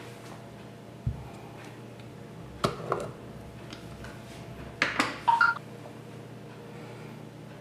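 Small glass jar set down on a cloth-covered table with a soft thud, followed by a few sharp glass clicks and clinks, the last with a brief ringing tone.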